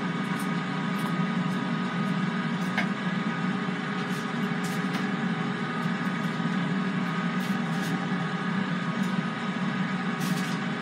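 Steady hum of a kitchen appliance's electric fan, with scattered light clicks of metal tongs against the air fryer basket as wings are lifted out.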